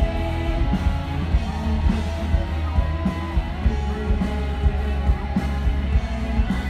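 Live rock band playing through a PA: electric guitars, bass and drums over a steady beat.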